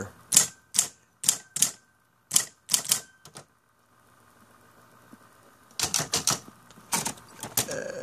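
Royal Apollo 10 electric typewriter being typed one key at a time. Each key gives a sharp clack as the motor-driven cam throws a typebar against the ribbon. About eight spaced strikes come in the first three and a half seconds, then a pause, then a quicker run of strikes near the end.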